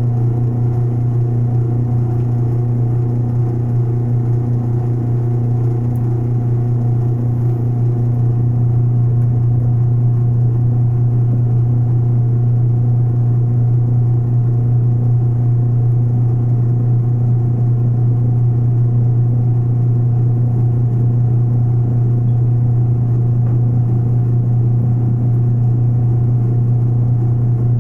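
Small benchtop metal lathe running steadily while it turns a lead casting, its motor giving a loud, even low hum that grows slightly louder about eight seconds in.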